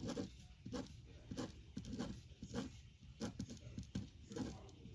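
Pen scratching on paper in short, repeated strokes, a little over one a second.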